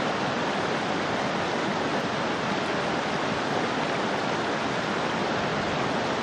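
River water rushing steadily over rocks in a shallow rapid.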